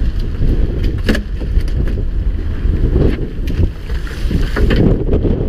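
Wind buffeting the microphone aboard a fishing boat at sea, a steady low rumble, with a few sharp knocks, the clearest about a second in.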